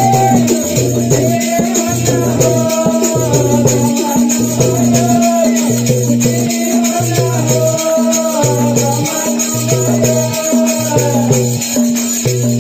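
Vagdi Christian bhajan (Yeshu bhajan) music, mostly instrumental here: a melody line over a bass note that pulses in an even, repeating rhythm.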